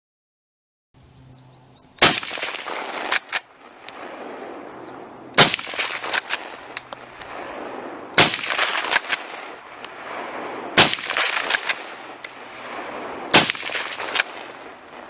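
Five single gunshots, spaced about three seconds apart. Each shot has a long echoing tail, and one or two smaller sharp clicks follow it about a second later.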